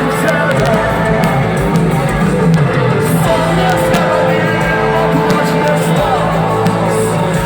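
Rock band playing live in an arena, loud electric guitars and drums with singing.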